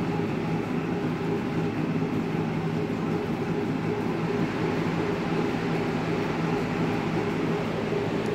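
Curved manual treadmill's slatted belt rumbling steadily under a man's running strides.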